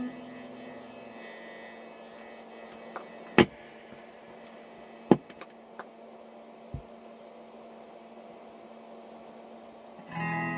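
A pause in guitar playing: a last note dies away, then a low steady electrical hum carries on with a few sharp knocks, the two loudest a few seconds in and a second and a half apart. The guitar is strummed again near the end.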